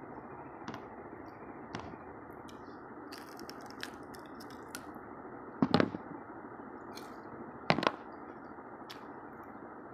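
Crisp jalebi being bitten and chewed close to the microphone: small clicks and two loud crackling crunches, one a little past halfway and another about two seconds later, over a steady hiss.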